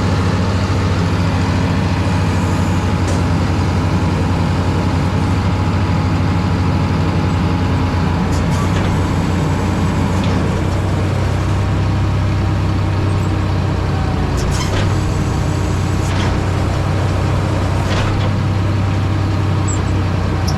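Heavy diesel farm machinery running steadily with a strong low drone, with a few brief sharp noises at intervals.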